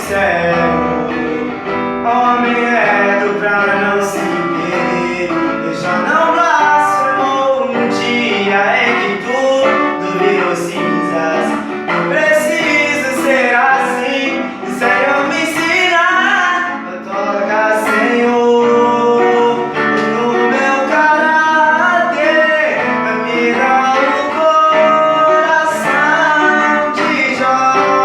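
A song playing: a voice singing a melody over guitar accompaniment.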